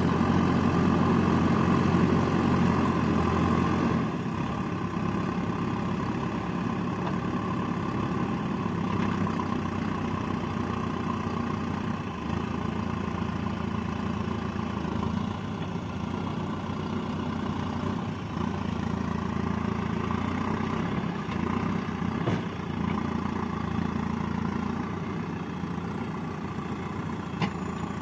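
JCB 3DX backhoe loader's diesel engine running steadily, louder for the first four seconds, then dropping to a lower, idle-like level, with a couple of faint clicks later on.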